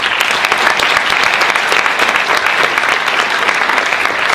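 Large audience applauding, breaking out all at once and holding steady.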